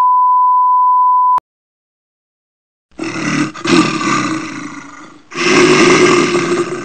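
A steady 1 kHz test-tone beep for about a second and a half that cuts off suddenly. After a short silence come two long animal roars, each about two seconds.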